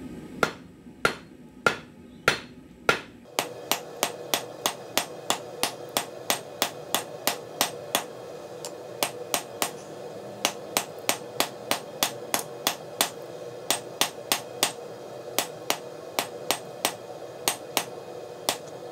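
Hand hammer forging red-hot rebar on an anvil: a few slower, louder blows, then a long run of quick, even blows about three a second, pausing briefly now and then.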